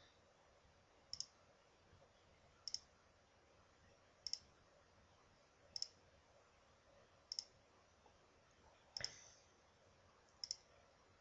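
Computer mouse clicking at an even pace, about one click every one and a half seconds, seven in all, each a quick double click of press and release, stepping an on-screen chess board through its moves. The click about nine seconds in is the loudest.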